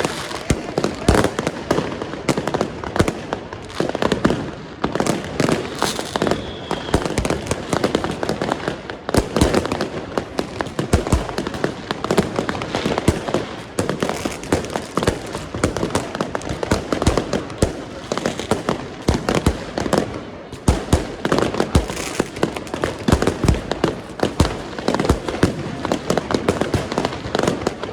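Many fireworks and firecrackers going off together: a dense, unbroken run of bangs and crackles, with a short whistle about six seconds in.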